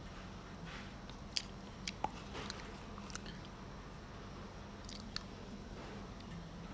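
Someone eating close to the microphone: a handful of sharp crunching clicks, bunched from about one and a half to three seconds in and again around five seconds, over a steady low hum.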